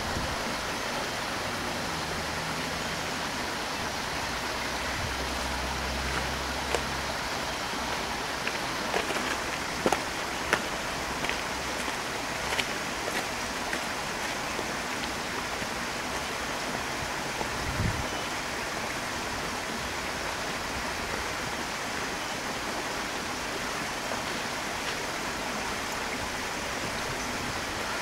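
Steady rushing noise of outdoor ambience, with a few faint clicks of footsteps on a path in the middle.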